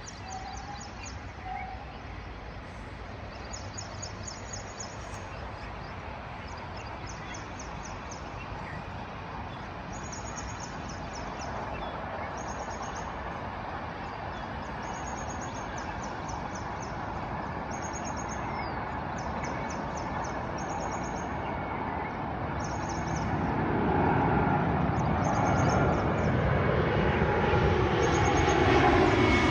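An airliner on landing approach, its engine noise a steady rushing that grows steadily louder as the plane nears, swelling sharply over the last few seconds with sweeping pitch. Short high chirping trills repeat throughout.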